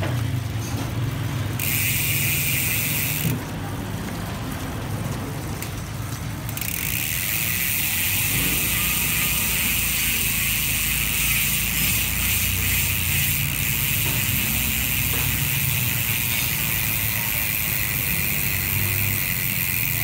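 Speedone Soldier six-pawl rear freehub clicking rapidly as the wheel freewheels, the pawls ratcheting in a fast, continuous buzz. It drops out for a few seconds near the start, then runs steadily.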